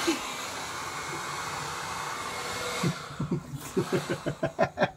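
Handheld electric hair dryer blowing steadily on damp, freshly dyed hair, switched off about three seconds in, followed by laughter.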